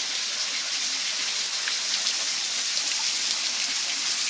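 Spring water trickling and dripping off a mossy rock ledge onto wet stones and pebbles: a steady splashing hiss with many small drops ticking through it.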